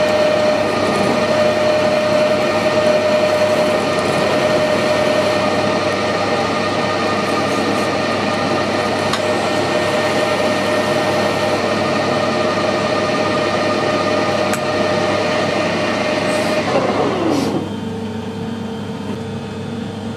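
Metal lathe running with a steady whine while a centre drill cuts a centre hole in the end of a spinning steel bar. About 17 seconds in the spindle is switched off and winds down in a falling whine, leaving a quieter hum with a few light ticks.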